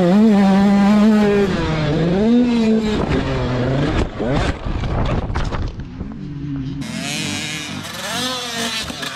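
Dirt bike engine running hard, its pitch rising and falling with the throttle. About three seconds in, it gives way to a run of knocks and scraping. From about seven seconds on, a dirt bike engine is heard more faintly, revving over a hiss.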